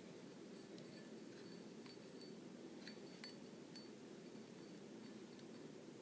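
Near silence: room tone with a handful of faint small clicks and ticks as a spincast fishing reel and its line are handled.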